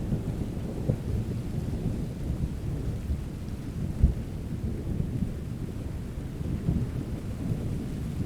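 Thunder rumbling low and continuously over steady rain, with one brief, sharper crack about four seconds in.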